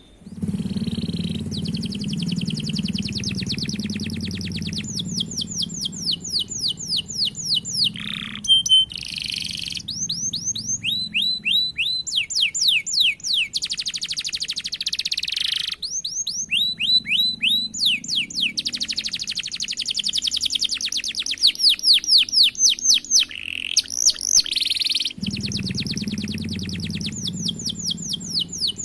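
Domestic canary singing a long, continuous song of rolls: fast runs of repeated sweeping notes that change to a new trill every few seconds. A low hum runs underneath in some stretches.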